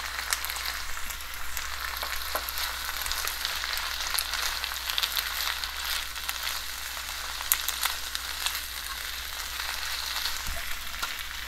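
Cut okra and sliced onion sizzling steadily in hot oil in a nonstick wok, a continuous crackling hiss full of tiny pops, as a silicone spatula tosses and stirs them.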